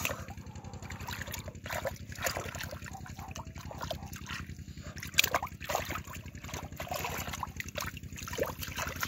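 Shallow muddy water splashing and sloshing as bare feet wade and hands grope through it for fish, in irregular splashes with a sharper one about five seconds in. A steady low hum runs underneath.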